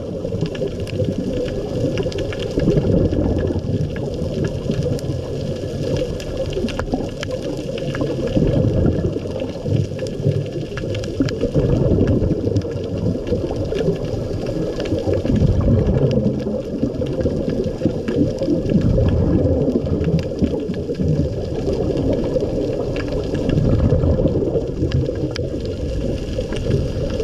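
Muffled underwater sound of a scuba diver breathing through a regulator: a low gurgling rush of exhaled bubbles that swells every few seconds, with faint scattered clicks over it.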